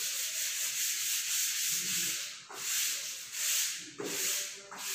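Chalkboard duster rubbing chalk off a blackboard: a hissy scrubbing in long wiping strokes, with brief breaks between strokes about halfway through and near the end.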